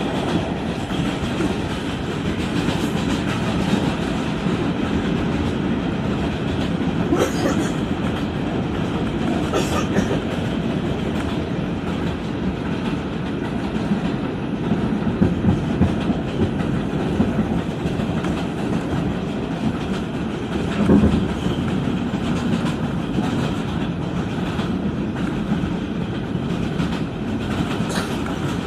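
Inside an R142 subway car running at speed, its ventilation switched off: a steady rumble of the wheels on the track, broken by a few sharp clicks and a heavier knock about three-quarters of the way through.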